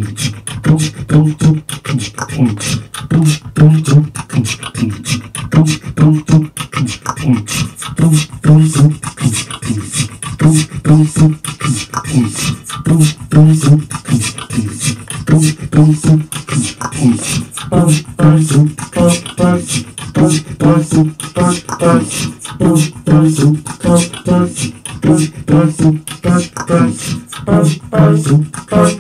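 Live beatboxing through a microphone, layered with a loop station into a steady repeating beat of deep booms and sharp clicks. A higher, pitched vocal line joins about two-thirds of the way in.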